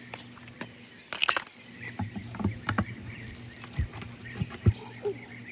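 A scattered series of knocks and clicks, the loudest a brief clatter about a second in, with birds chirping in the background.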